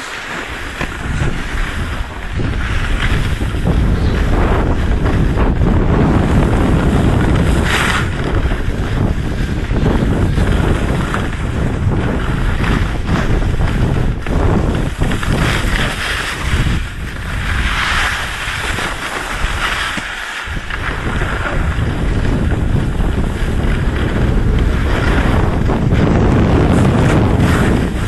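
Wind rushing and buffeting over the microphone during a fast run down a snowy slope, with the hiss of sliding over the snow. It is loud throughout and eases briefly about two-thirds of the way in.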